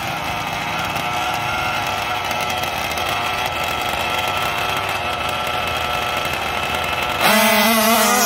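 Two 1/5-scale RC dragsters' small two-stroke gas engines idling at the start line. About seven seconds in they go to full throttle with a sudden loud jump, and the pitch climbs as the cars launch down the strip.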